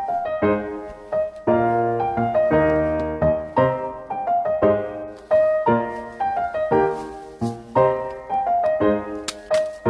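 Background piano music: a melody of struck notes, each dying away, in a steady flowing rhythm. A few sharp clicks sound near the end.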